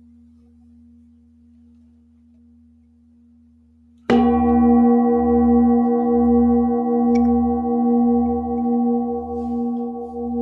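A singing bowl ringing faintly, then struck with a wooden mallet about four seconds in. It rings on loudly with many overtones and a slow, wavering pulse.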